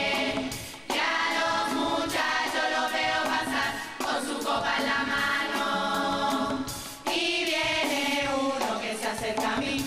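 Women's carnival murga chorus singing together in unison, phrase after phrase, with brief breaks between phrases about a second in and again around seven seconds.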